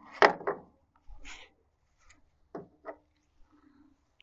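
A few sharp metal clicks and knocks from hand tools working the grille fasteners of a truck, the loudest two close together near the start, then a short rustle and two lighter clicks midway.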